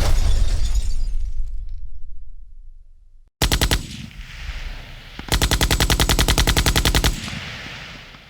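Machine-gun fire as a sound effect: a few sharp shots, then a rapid burst of about fourteen rounds a second lasting nearly two seconds, with an echoing tail. Before it, the tail of an earlier blast fades out.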